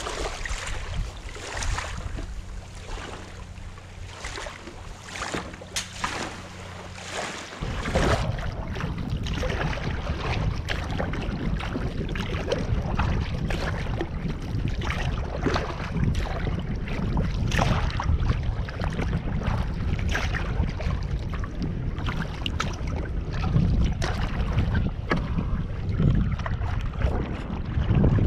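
Kayak paddling on choppy open water: the paddle blades dip and splash in an irregular rhythm and water slaps against the hull, under heavy wind rumbling on the microphone. The first eight seconds are quieter, with scattered light clicks, before the wind and water come in abruptly.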